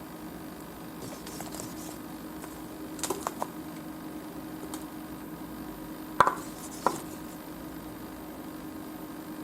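Hard objects knocking together: three or four quick light clicks about three seconds in, then two sharp clinks with a short ring, about half a second apart, near six to seven seconds in, over a steady low hum.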